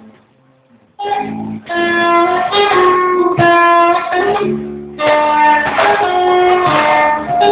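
Band music: guitar strumming under a melody of held notes, starting abruptly about a second in after a brief near-silence.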